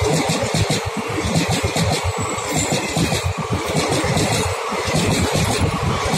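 Indian Railways passenger coaches passing close by at speed: a continuous rushing noise with a choppy low rumble, and wheels clattering on the rails in quick repeated clicks.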